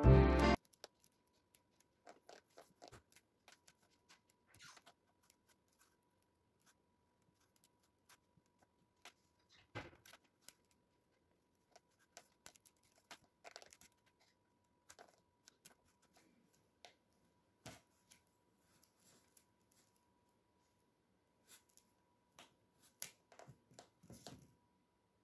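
Faint, scattered small clicks, taps and scrapes of hands kneading and pressing plasticine pieces and handling a small plastic modelling tool on a tabletop. A faint steady high tone hums underneath. Background music cuts off just after the start.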